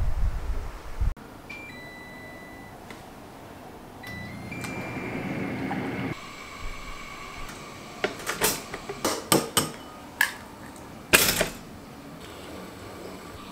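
Kitchen sounds: a low rumble that cuts off after about a second, then a short electronic tone. An instant hot water dispenser runs water for about two seconds and stops abruptly, followed by a run of sharp clicks and clinks. Near the end comes one loud snap from a pop-up toaster.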